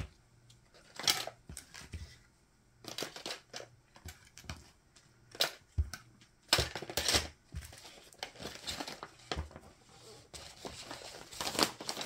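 Irregular rustling and crinkling of small plastic packets, with light clicks and taps as diamond painting tools are picked up off a tabletop and packed away.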